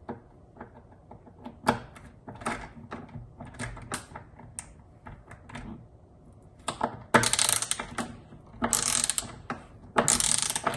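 Micro ratchet screwdriver clicking as it is worked back and forth to loosen a fastener: scattered single clicks at first, then from about seven seconds in three quick strokes of rapid ratcheting, about one a second.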